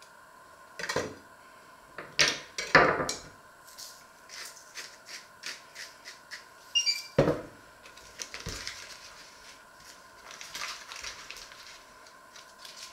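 A knife knocking on a wooden cutting board and clinking on a china plate as butter is sliced and laid on bread: a handful of sharp knocks, with a ringing clink about seven seconds in. Softer scraping and the rustle of butter paper being folded follow.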